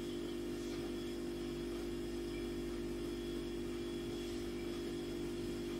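Steady electrical hum with an even background hiss: room tone.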